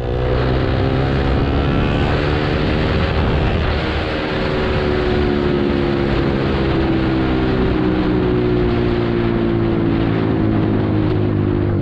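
Yamaha R15's single-cylinder engine running under way, heard from the rider's position over wind and road noise. Its pitch drifts slowly down across several seconds as the revs ease off.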